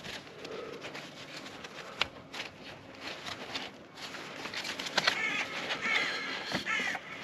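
Scattered clicks, knocks and rubbing as a metal EGR valve is handled and wiped clean by hand, with a run of high wavering chirps near the end.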